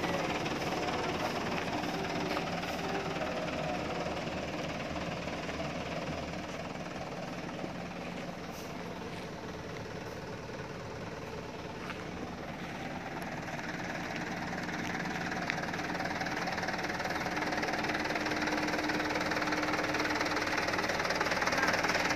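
Dump truck's diesel engine idling steadily, a little fainter in the middle and louder again near the end.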